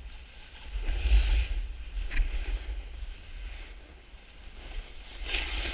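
Snowboard sliding over packed, tracked snow: a scraping hiss that swells about a second in and again near the end, over wind buffeting the camera microphone.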